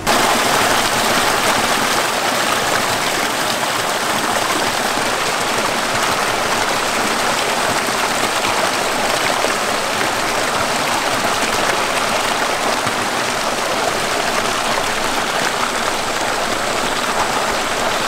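Mountain stream rushing over rocks close by: a loud, steady wash of water that starts and cuts off suddenly.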